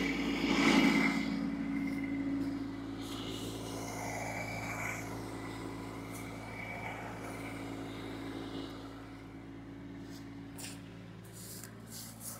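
Kubota LX2610 compact tractor's three-cylinder diesel engine running steadily, louder for the first second or so.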